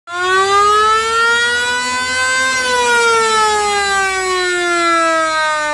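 A siren wailing: its pitch rises for about two and a half seconds, then slowly falls.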